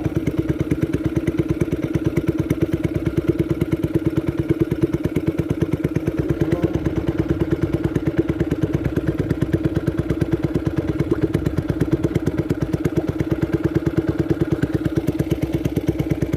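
Small boat engine running steadily under way, with a fast, even putter.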